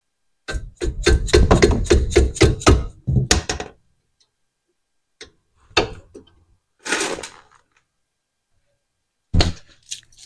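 Power impact tool running in rapid short bursts on the brake caliper bolts for about three seconds, followed by metallic clunks and knocks of the loosened parts and tools, with a sharp knock near the end.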